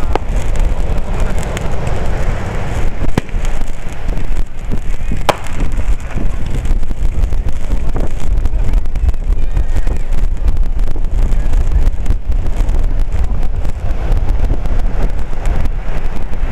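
Fireworks going off, with two sharp bangs about three and five seconds in, over a heavy low rumble of wind buffeting the microphone.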